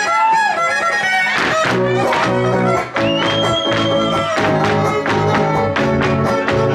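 Huasteco string trio playing a huapango: violin melody over strummed jarana and huapanguera chords, with a long high violin note about three seconds in.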